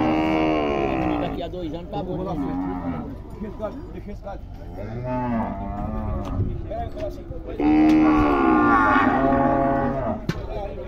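Nelore-type cattle mooing: several long, drawn-out moos, the loudest right at the start and another long one about eight seconds in, with quieter moos between.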